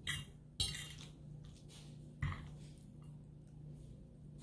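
A few brief, soft clicks and scrapes of cutlery on a plate during a meal, three in all, over a faint steady low hum.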